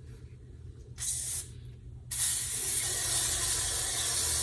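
Aerosol cooking spray hissing into a mug: one short spray about a second in, then a longer steady spray from about two seconds in.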